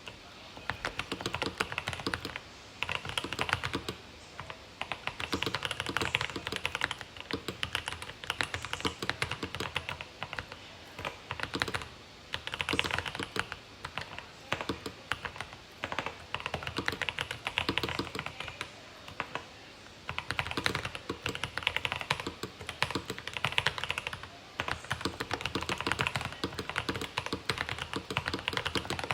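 Typing on a Rama Works M65-B mechanical keyboard with Boba U4T tactile switches and GMK keycaps, the board dampened with internal foam, tape mod and PE foam. Fast runs of keystrokes come in bursts with brief pauses, a deep thock under each click.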